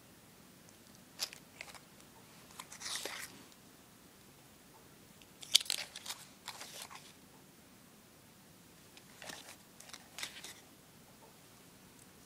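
Paper-wrapped cardboard firecracker tubes being handled and shifted on a carpet: short bursts of crinkling and knocking in four brief clusters, the loudest about five and a half seconds in.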